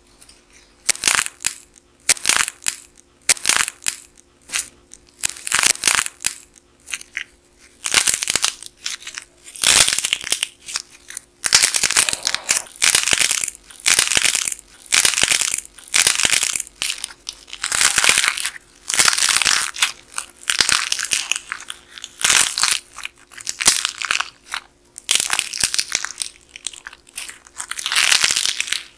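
Dried crust of a soft modelling-clay figure cracking and crunching as fingers squeeze and tear it open, in repeated crackling bursts about one a second. The bursts grow longer and denser from about ten seconds in.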